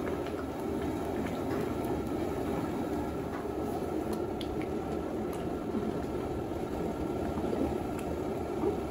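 Thickened fish curry gravy simmering and bubbling steadily in a large metal pot, with a few light clicks of a slotted spatula against the pot as the fish pieces are moved.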